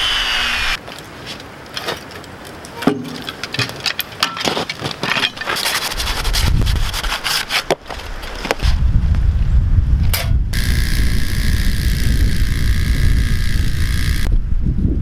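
Woodworking sounds: sawing at the start, then scattered knocks and scraping, then a power tool runs steadily for about six seconds and stops shortly before the end, over wind rumbling on the microphone.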